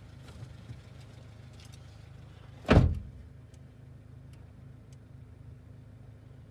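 A car engine idles steadily in the background. About two and a half seconds in there is one loud, short thump, followed by a few faint ticks.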